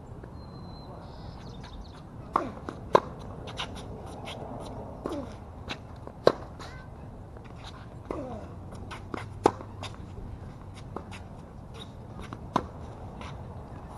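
Tennis rally on a hard court: rackets strike the ball with sharp pops roughly every three seconds, with lighter ball bounces and players' footsteps and shoe scuffs in between.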